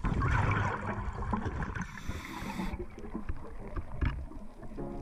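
Underwater sound picked up by a camera in its housing: a loud gurgling rush of bubbles in the first second, then muffled water noise with scattered clicks and crackles. Music begins just before the end.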